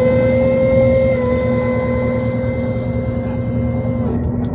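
Boat engine running steadily under a motor whine that holds one pitch, dips slightly about a second in, and drops away about four seconds in.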